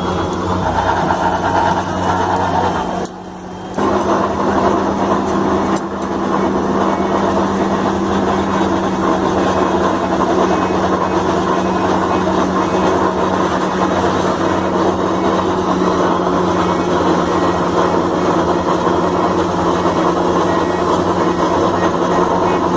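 Heavy road-construction machine's engine running steadily with a constant low hum, the sound briefly dropping out twice near the start.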